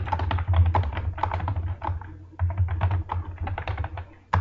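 Fast typing on a computer keyboard: a quick run of key clicks with a short pause about halfway through.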